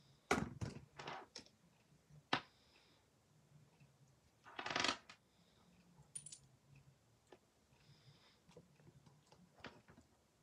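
Beads clicking and rattling against each other as they are pushed along beading wire: a quick run of clicks about half a second in, a single click at two seconds, a longer rattle just before five seconds, then faint ticks.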